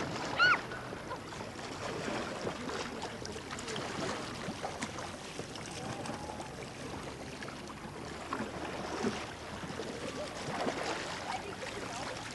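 Kayak paddles splashing in open lake water, with faint voices in the background. About half a second in, a single short high chirp stands out as the loudest sound.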